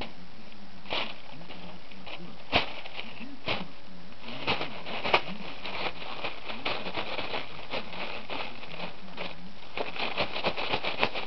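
Tissue paper crinkling and rustling in short crackly snaps as a cat paws and noses through it, busiest about halfway through and again near the end.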